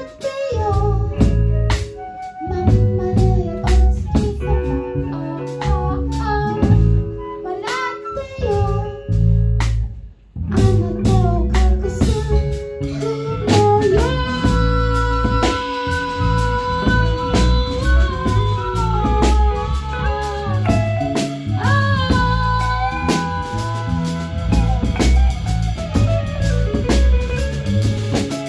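A live band playing, with guitar and drum kit and singing. The music breaks off briefly about ten seconds in, then comes back with long held melody notes.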